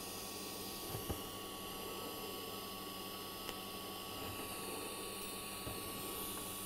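Steady low hum and hiss with a thin high whine above it, unchanged throughout, and a few faint clicks, one about a second in.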